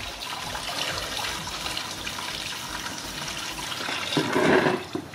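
Engine coolant running in a steady stream from a car's radiator drain plug into a plastic bucket as the radiator is drained. A brief louder noise about four seconds in.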